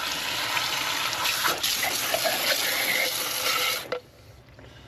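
Garden hose pistol-grip spray nozzle jetting water onto a clogged mesh filter screen and a concrete slab, a steady hiss and splatter with a brief break about a second and a half in, cutting off about four seconds in.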